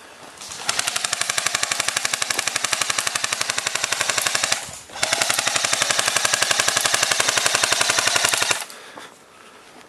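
Airsoft gun firing two long full-auto bursts of rapid, even shots, with a short break between them.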